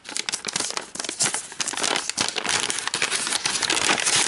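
A striped mystery bag crinkling and crackling in the hands as its sealed top is pulled open: a quick, unbroken run of sharp crackles.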